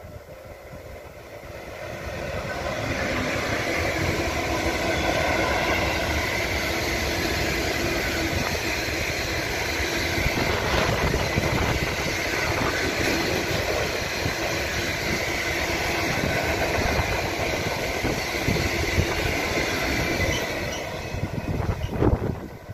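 A freight train of tank wagons passing close by behind an electric locomotive: the steady noise of many wagon wheels running over the rails, building over the first few seconds and dying away near the end.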